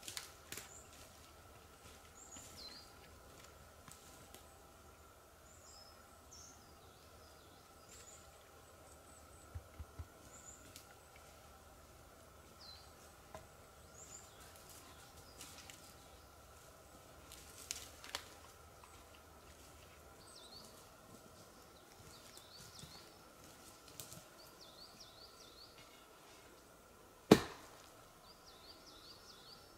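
Quiet forest ambience with small birds calling in short, high, falling chirps, and a few light clicks and knocks. Near the end comes one loud, sharp knock.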